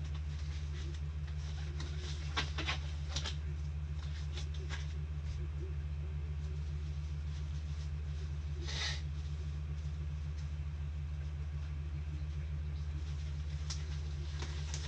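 A steady low hum with a few brief, light clicks and rustles of handling scattered through it.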